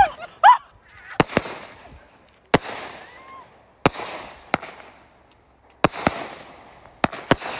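Consumer aerial fireworks firing shell after shell: a string of sharp bangs about one a second, some in quick pairs, each trailing off in a fading hiss.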